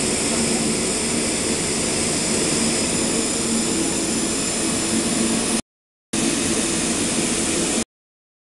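Flatbed computer cutting machine running: a steady mechanical drone with a low hum and a high whine. The sound cuts out completely for half a second about five and a half seconds in, and again near the end.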